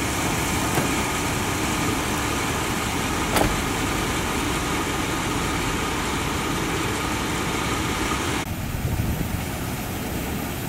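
Pickup truck engine idling steadily. About eight and a half seconds in the sound changes abruptly, going duller, with a few low knocks.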